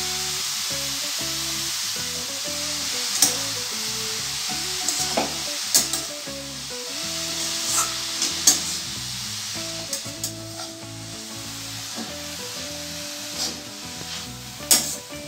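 Shredded cabbage, carrot and chopped onion sizzling in hot oil in a metal wok, stirred with a metal spatula that clinks and scrapes against the pan now and then. The sizzle eases off in the second half.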